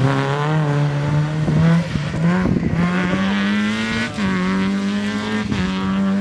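Peugeot 106 rally car's engine at high revs as it drives past, the note climbing and dropping sharply with gear changes about two seconds and four seconds in.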